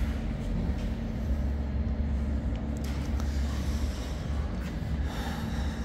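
A steady low hum or rumble of workshop machinery, with a few faint ticks.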